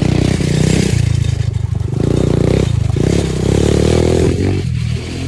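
ATV engine running under throttle while being ridden, its pitch shifting as the throttle opens and eases, with a steady hiss over it. It eases off briefly near the end.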